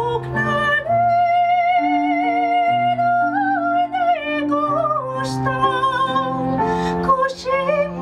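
Soprano singing in operatic style, holding long notes with a wide vibrato that rise in pitch about three seconds in, over a lower accompaniment of held notes that change every second or so.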